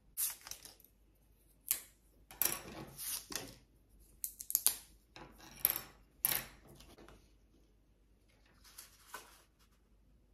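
Thin wooden sticks clicking and clattering against a hard tabletop as they are picked up and laid down, mixed with the rustle of stiff paper cut-outs being handled. The clatter comes in a busy run of short clicks and scrapes, then a brief last few near the end.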